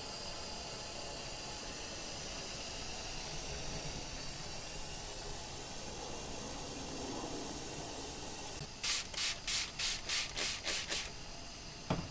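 Cooled wort streaming from a hose into a glass carboy, a steady splashing hiss as it lands on the foam. Near the end comes a quick run of about eight short hissing bursts, then a click.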